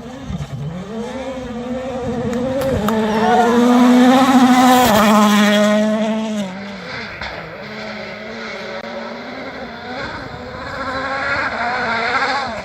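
Rally car engine approaching at full throttle, its note climbing through quick gear changes. It is loudest about four to five seconds in, drops in pitch as the car passes, then fades. The engine note rises again near the end.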